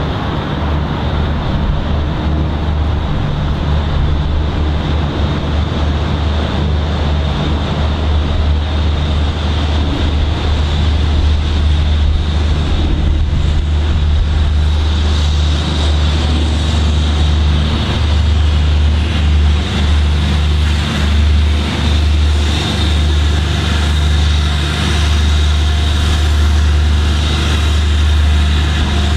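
BR Standard Class 7 steam locomotive 70000 'Britannia', a two-cylinder 4-6-2 Pacific, working a passenger train as it approaches, over a heavy, steady low rumble that grows a little louder after about twelve seconds.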